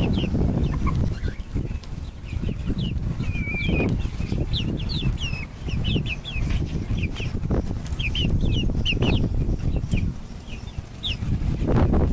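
Young hens calling in many short, high peeps and chirps, one after another, over a steady low rumble.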